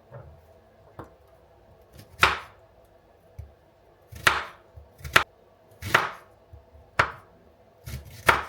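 A knife chopping on a cutting board: about eight sharp, irregularly spaced strokes, a few louder and longer than the rest.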